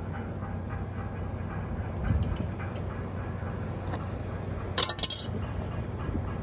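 Brief sharp clinks of a wire crab trap and a plastic crab gauge being handled, loudest about five seconds in, over a steady low hum.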